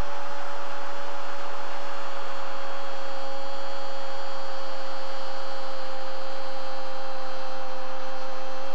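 A football commentator's long held goal cry, one sustained "gooool" kept on a single high, steady pitch, over the noise of the stadium crowd.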